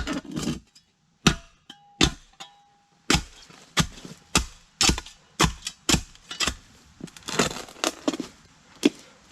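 Spade repeatedly striking and cutting into hard, rocky clay soil while digging a post hole: a run of sharp chopping impacts with gravelly scrapes, about one to two a second, irregular in spacing.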